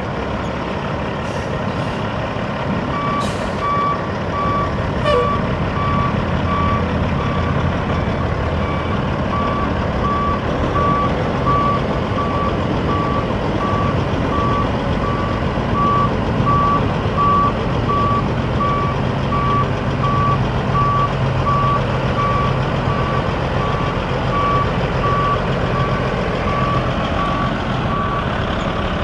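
Caterpillar 3406 six-cylinder diesel truck engine running steadily, with a backup alarm giving a steady run of evenly spaced, single-pitch beeps from a few seconds in until near the end.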